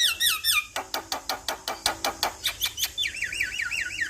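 Male Javan myna singing. It gives a string of wavy whistled notes, then a fast run of sharp clicking notes at about six a second, and near the end a quick series of wavy whistles again.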